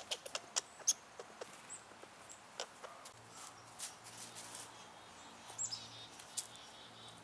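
Squirrels making noise: faint, irregular sharp clicks, several a second, with a few brief high chirps.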